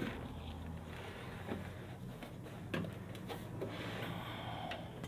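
Handling noise of a portable CRT television's plastic cabinet being moved on a workbench: a few scattered knocks and rubs, over a steady low electrical hum.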